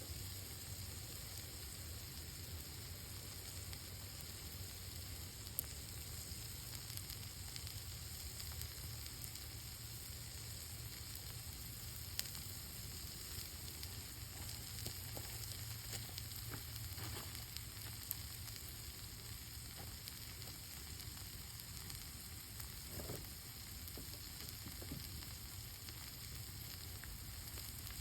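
Food sizzling over a campfire: a steady sizzle with a few sharp crackles.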